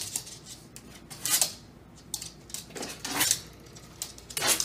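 A small dog's claws clicking and scraping on a hard wood-look floor as it pushes a door. There are a few short bursts about a second apart.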